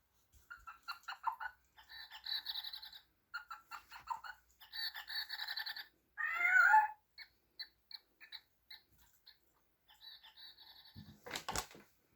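A cat's toy ball rattling in quick shaking runs as it is batted about, with one loud meow about six and a half seconds in.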